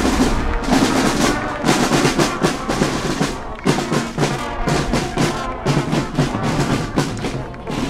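Marching band playing as it passes, with snare and bass drums beating out a rhythm under brass instruments.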